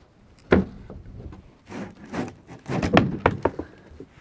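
Wooden planks knocking against each other as the pile of boards under a sailboat rudder is shifted. One sharp thunk comes about half a second in, then a run of several knocks and scrapes in the middle.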